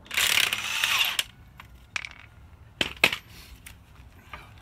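A hiss lasting about a second, then a few light metallic clicks and taps as a gloved hand works at the car's front wheel and brake parts.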